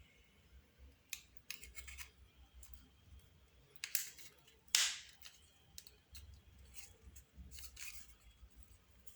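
Scattered clicks and brief scrapes of hand tools working on an old telephone being taken apart, the loudest scrapes about four and five seconds in.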